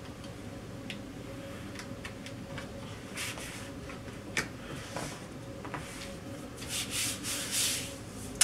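Hands sliding and pressing over a BuildTak FlexPlate, the flexible build sheet of a 3D printer, as it is seated onto its magnetic base. Scattered light clicks and taps come first, then rubbing swishes that grow stronger over the last couple of seconds, over a steady low hum.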